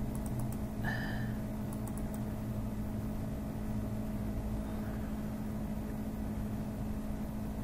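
Steady electrical hum and room noise, with a few faint clicks in the first couple of seconds.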